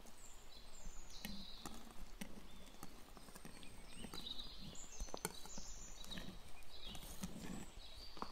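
Wire balloon whisk folding kiwi purée into thick whipped cream in a glass bowl: wet squelching of the cream with irregular clicks of the whisk wires against the glass.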